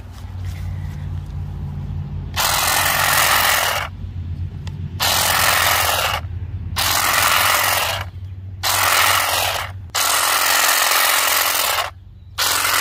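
Saker 20-volt cordless grass shear cutting long grass, its motor and blades running in six short bursts of one to two seconds each, starting about two seconds in.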